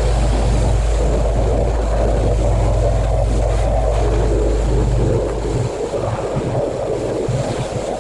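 Pressure washer running and spraying water: a steady low motor hum under a rushing hiss. The hum drops out about five seconds in, leaving the hiss of the spray.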